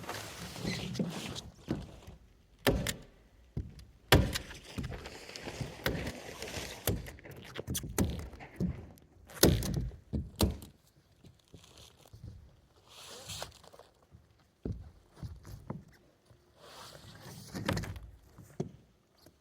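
Irregular wooden knocks and thuds, with shuffling and scraping between them, from work on the plywood roof sheathing.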